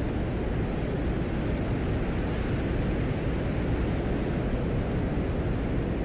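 Audio recorded by a Soviet Venera lander's microphone on the surface of Venus in 1982: a steady, even noise, strongest in the low bass, with no distinct events.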